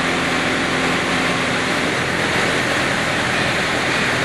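Crawler DTH drilling rig's diesel power unit and hydraulics running steadily: a loud, even machine noise with a low hum, one tone of which drops out about two seconds in.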